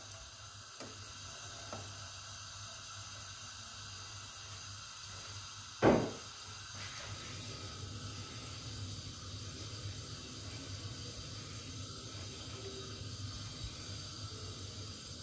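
Steady low hiss of a lit gas hob burner under a frying pan, with one sharp knock about six seconds in as the pan is moved on the cast grate.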